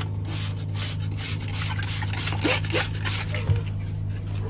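Quick hissy swishes, about four or five a second, from window film being wetted with a trigger spray bottle and rubbed flat onto the glass, over a steady low hum.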